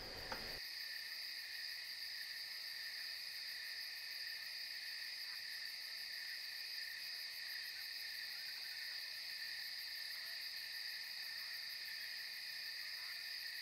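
Night insect chorus: crickets trilling continuously in a steady, high-pitched drone.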